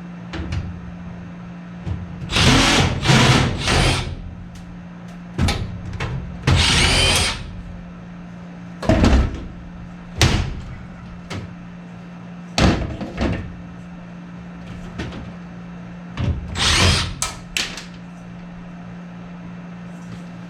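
Short bursts of a cordless power drill-driver spinning, one with a rising whine, mixed with clanks and knocks of metal being handled during furnace tear-out, over a steady low hum.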